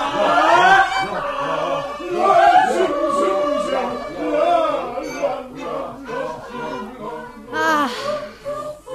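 Several voices singing together.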